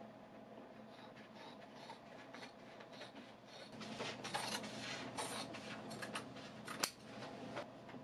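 Scissors cutting through canvas: a run of crisp snips with the rustle of the cloth, louder and busier from about halfway, and one sharp click near the end.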